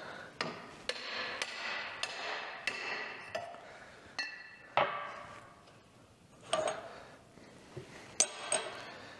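A series of hammer blows on a length of old exhaust pipe used as a driver, seating a ring onto a driveshaft's splined stub behind the carrier bearing. There are about eight sharp, ringing metal strikes in the first five seconds, then a few lighter metal clinks as the parts are handled.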